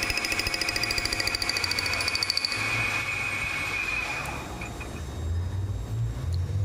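Manual metal lathe cutting a toothed steel part, the tool making a fast, even knocking rhythm with a high whine. About two and a half seconds in the cut ends, and the whine fades over the next couple of seconds as the spindle stops, leaving a low hum.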